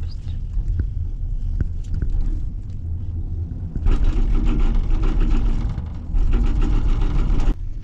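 Cable car gondola riding the haul rope with a steady low rumble, then passing a support tower: about four seconds in, a much louder rapid rattling rumble as the gondola's grip runs over the tower's roller sheaves, dipping briefly midway and cutting off suddenly near the end.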